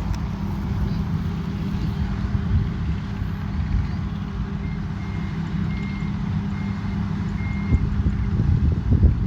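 Combine harvester's diesel engine running steadily, with a reversing alarm giving a series of short high beeps midway through.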